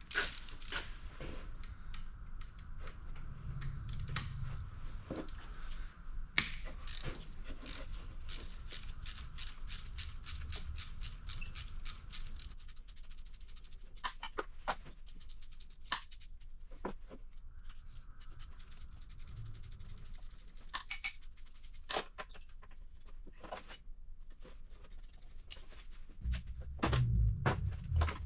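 Hand work on snowmobile exhaust parts: scattered metallic clicks and scrapes, with a quick even run of clicks in the middle and a louder rumbling knock of handling near the end.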